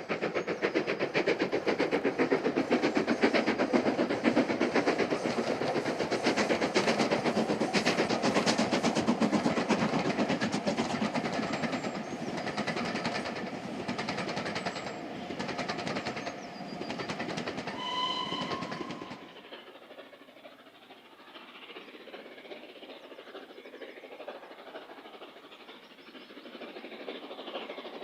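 Steam train running past with a fast, rhythmic clatter, and a short whistle about 18 seconds in. About a second later the sound cuts abruptly to a much fainter, thinner train sound.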